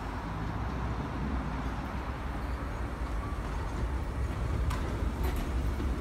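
R32 subway train running past, a steady low rumble of wheels and motors that grows louder, with a few wheel clicks over rail joints near the end.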